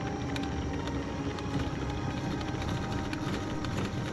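Wood lathe running while a carbide tool cuts the inside of the spinning cylinder of 3D-printed wood-fibre PLA pieces filled with epoxy, with background music over it.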